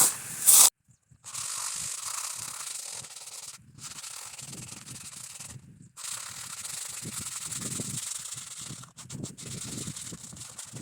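Sandpaper rubbed by hand over wooden planks, roughing the surface so it takes the used-oil treatment better. It scrapes in long stretches with short pauses, then a few short strokes near the end.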